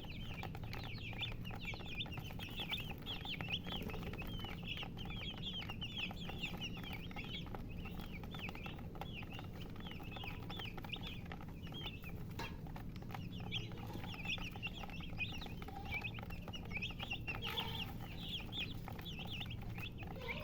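Baby chicks peeping continuously, many short high-pitched cheeps overlapping one another, over a faint steady low hum.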